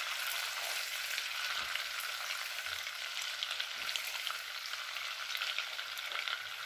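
Butter melting and sizzling in a hot pan: a steady hiss with many small crackles.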